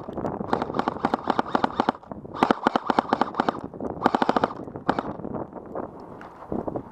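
Airsoft rifle firing on full auto: three long bursts of rapid clicking shots and a short one near the end.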